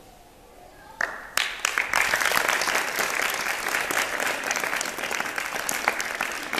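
A brief lull, then an audience breaks into applause about a second in and keeps clapping steadily.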